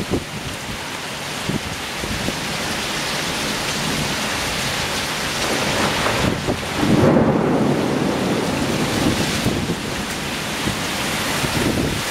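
Torrential downpour, heavy rain pouring steadily. About six seconds in, a louder low rumble swells up and eases off after about two seconds.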